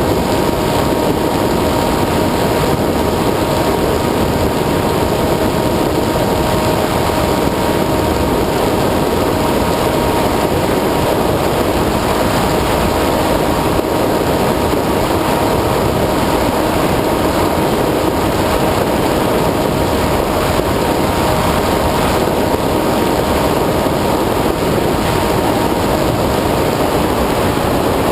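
Onboard audio of an FPV model aircraft in flight: its motor and propeller hold a steady whine over constant wind rush.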